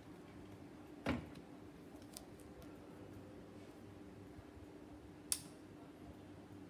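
Quiet handling sounds of objects on a tabletop: a soft knock about a second in, a few faint clicks, and a sharper click about five seconds in, over a faint steady hum.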